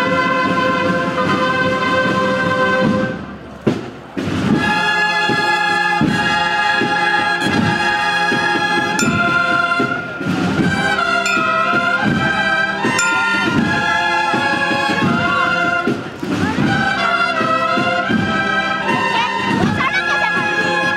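Brass band playing a processional march, with drumbeats under the melody. A long held chord breaks off about three seconds in, and a new passage starts about a second later.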